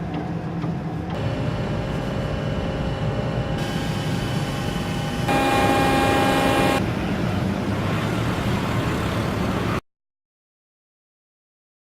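Loud, steady mechanical noise with a heavy low rumble and a few steady whining tones, changing abruptly several times as if cut between shots, then cutting off to silence about ten seconds in.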